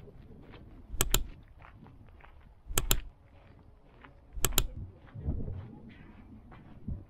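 Footsteps on stony, gravelly ground: three heavy steps about a second and a half apart, each a sharp double crunch, with faint scuffs of loose grit between them.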